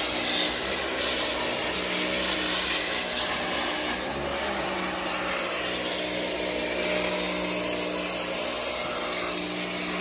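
Electric Kärcher pressure washer running with a steady hum from its motor and pump, and the hiss of its water jet spraying into an intercooler core to flush out packed-in debris.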